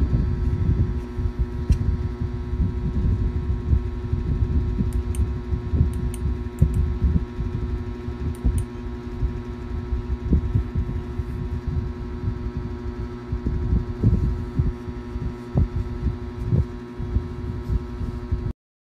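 Low, irregular rumbling and soft thumps from hands handling the recording device, over a steady electrical hum.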